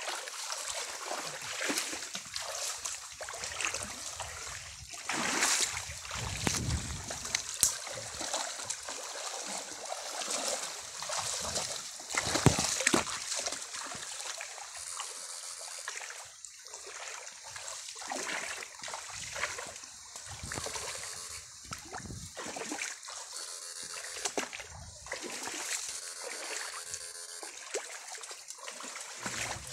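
People wading through a shallow creek: irregular splashing and sloshing of water around their legs and feet as they step, with the loudest splashes about 6 and 12 seconds in.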